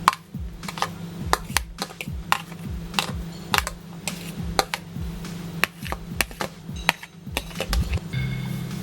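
Quick, irregular clicks and taps of a kitchen utensil against a mixing bowl as sautéed onion is scraped into ground beef.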